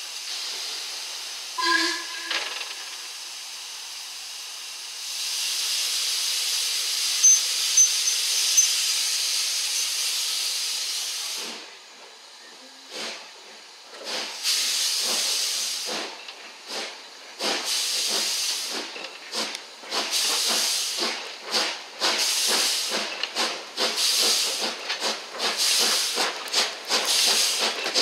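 Steam locomotive 45428, an LMS Stanier Black Five 4-6-0, starting its train, heard from a carriage window just behind it. A short whistle toot comes first, then a steady hiss of steam from about five seconds in. From about twelve seconds in, exhaust chuffs begin about a second apart and quicken to about two a second as the engine pulls away.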